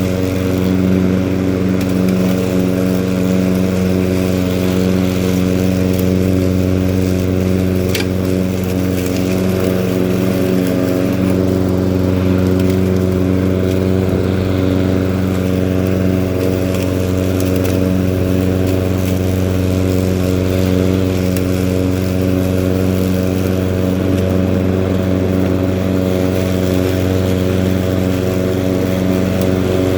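Husqvarna LC151 walk-behind mower's petrol engine running steadily under load while cutting tall, thick grass.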